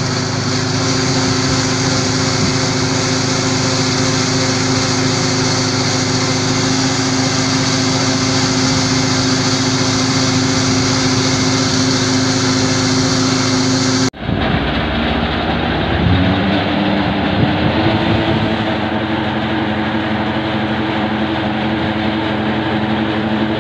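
Massey Ferguson 9500 tractor's diesel engine running steadily under load, driving a clay mixer machine that pushes out wet clay. About 14 seconds in, the sound cuts to another tractor and mixer, whose engine speeds up a couple of seconds later and then holds steady.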